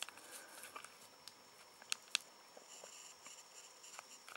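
Faint clicks of a Nokia 1100's keypad buttons being pressed while scrolling through ringtones, two sharper clicks about two seconds in. No melody comes from the phone: its ringer speaker has lost its sound, a common fault.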